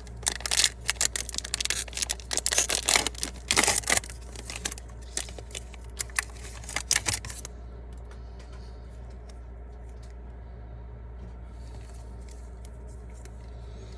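Foil trading-card pack being torn open and its wrapper crinkled, a dense run of crackles for about seven seconds, then only faint occasional clicks of cards being handled over a steady low hum.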